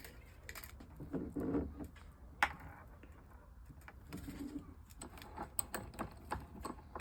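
A bird cooing in two low phrases, about a second in and about four seconds in. Scattered light clicks and knocks run through it, the sharpest about two and a half seconds in, over a steady low hum.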